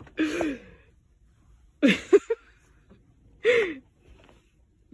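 Three short, breathy vocal sounds like gasps, each falling in pitch, about a second and a half apart.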